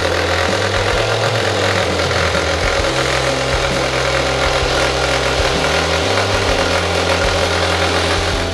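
Mini brushless angle grinder, mounted as a homemade bench saw, running continuously and loudly, then cutting off abruptly at the end.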